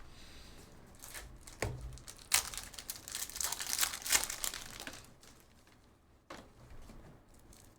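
Crinkly plastic trading-card wrapping being torn and crumpled, loudest in a burst of crackling from about two to five seconds in, with a few sharp clicks.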